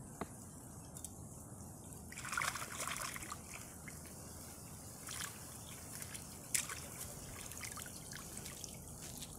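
Water trickling and dripping from a mesh keepnet as it is lifted out of the water. There is a brief run of pouring, splashing water about two seconds in, then scattered drips.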